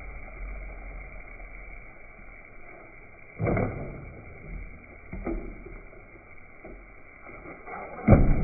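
BB gun firing twice: a sharp pop about three and a half seconds in and a louder one near the end, with a fainter knock in between.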